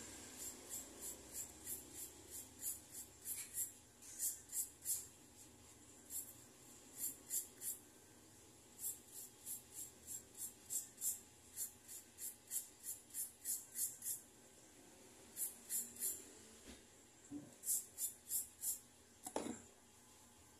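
Rasping strokes of a hand file being worked back and forth over a gold ring, in runs of about two to three strokes a second with short pauses between runs. There is a brief handling rustle near the end.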